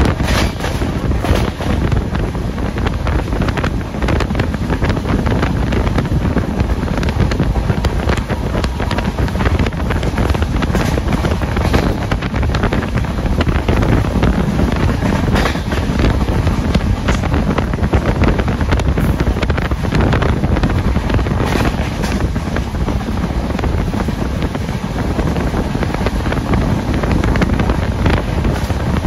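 Express passenger train running at high speed, heard from on board: a steady rumble of wheels on the rails with irregular sharp clatters, and rushing wind buffeting the microphone.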